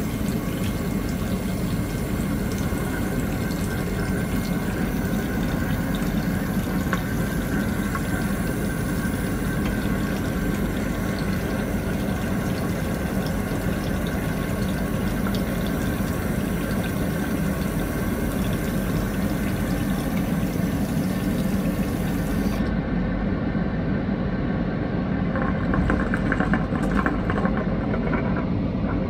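Water running from an airplane lavatory tap into a pooled sink over a steady aircraft cabin drone. The tap shuts off about three quarters of the way through. Near the end the suction-pump drain sucks the pooled water away with an irregular crackle.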